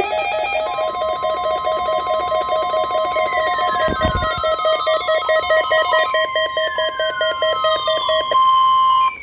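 NOAA Weather Radio 1050 Hz warning alarm tone: a single steady high tone that begins under a second in and cuts off just after nine seconds, sounding ahead of the weekly test message. Layered over it are a rapidly pulsing electronic alert tone, which stops shortly before the end, and, from about three seconds in, repeated falling siren-like electronic sweeps. There is a short thump about four seconds in.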